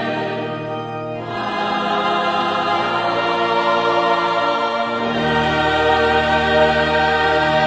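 Choir singing a hymn in long held chords; the harmony shifts about a second in, and a deep bass note comes in about five seconds in.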